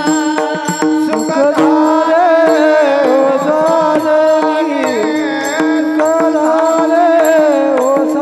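Marathi devotional bhajan singing: a voice holding long, ornamented notes over a steady drone, with drum strokes keeping time.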